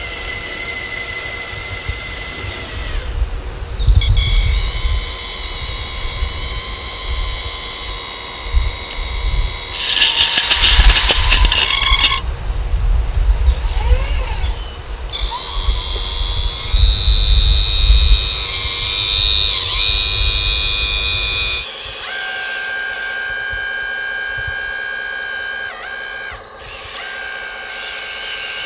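High electric whine of a scale RC tipper truck's hydraulic pump, starting about four seconds in as the bed tips. A short rush of gravel sliding off the raised bed follows a few seconds later, over low crunching. Near the end the sound changes suddenly to the steadier whine of an RC excavator's hydraulics.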